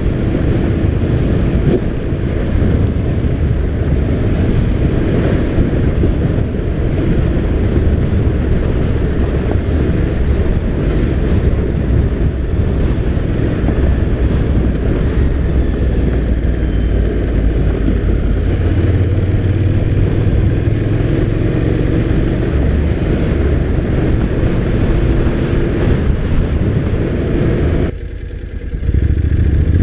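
Honda NC750X's parallel-twin engine pulling at speed on a loose sand and gravel track, mixed with heavy wind rush on the camera microphone. The sound dips briefly near the end, then the engine revs up again.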